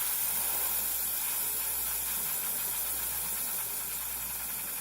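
Aerosol perfume spray hissing in one steady, continuous blast.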